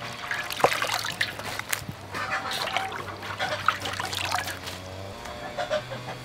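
Water splashing and trickling in irregular bursts as leafy vegetables are washed and handled in a basin of water.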